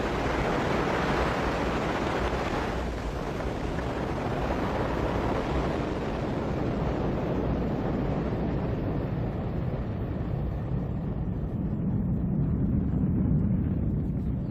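Ariane 5 rocket lifting off and climbing: its solid rocket boosters and main engine make a continuous rushing rumble. The high hiss thins after about seven seconds while the deep rumble carries on.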